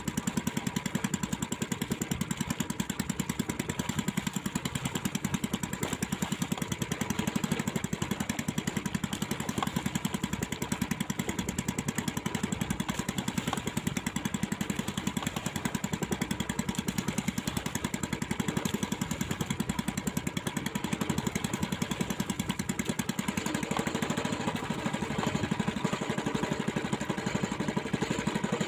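Small fishing-boat engine running steadily at low trolling speed, with an even, rapid beat.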